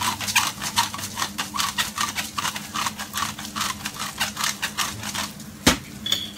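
Hand-twisted pepper mill grinding black pepper: a rapid, even run of crunchy clicks from the ratcheting grinder, then a single sharp knock near the end.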